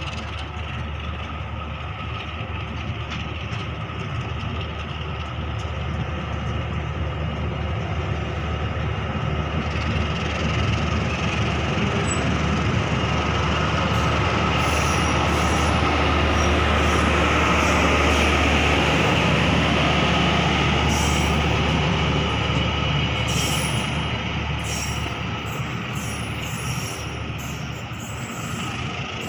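Commuter train coaches rolling out past the platform, their steel wheels running on the rails with a faint squeal. It grows louder toward the middle, with sharp ticks in the second half, and then fades as the last coaches pull away.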